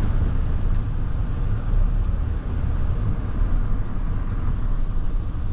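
Steady low rumble of road and tyre noise inside a moving car's cabin.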